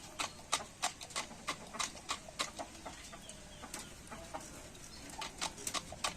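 Chickens: an irregular run of sharp clicks, about two or three a second, with a few soft clucks between them.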